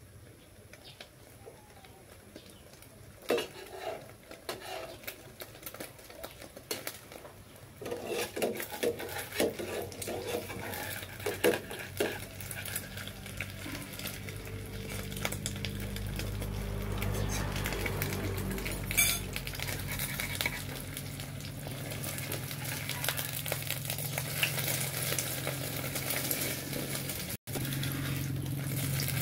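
A metal spatula scraping and clinking against a frying pan as eggs are stirred and turned, with light sizzling of the frying eggs. The scrapes and clinks start a few seconds in, and a low steady hum builds up through the second half.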